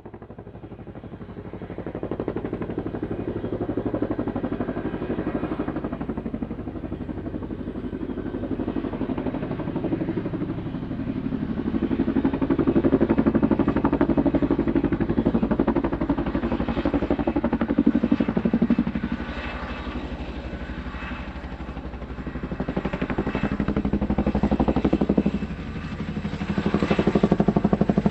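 Helicopter in flight, its rotor blades beating in a rapid, even chop over the engine. It rises in loudness over the first two seconds, then swells and dips as it moves, with a dip a little after the middle and a drop and recovery near the end.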